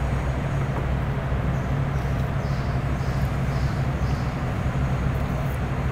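Steady low hum of a kitchen ventilation system, running evenly.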